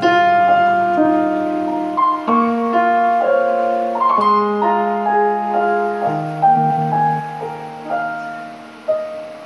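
Piano playing an instrumental interlude of a slow pop song, held notes and chords changing every second or so, with no singing.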